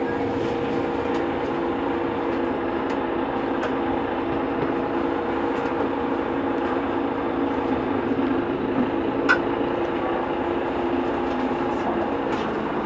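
Mercedes-Benz Citaro G C2 articulated bus idling at a stop, a steady hum of several held tones, with a few light clicks and one sharper click about nine seconds in.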